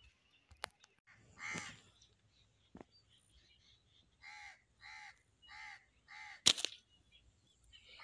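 A crow cawing four times in an even series, one caw about every 0.6 s. Just after the last caw comes a single sharp snap, the loudest sound, as a slingshot is shot.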